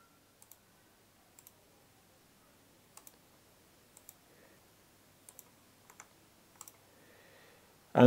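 Faint computer mouse clicks, about seven of them spread out, several as quick double clicks, over low hiss.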